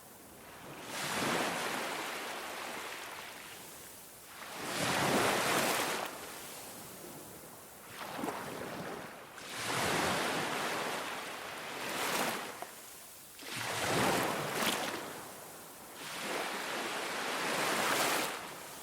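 Ocean surf breaking and washing up a beach. Six swells of rushing water come a few seconds apart, each rising and then fading.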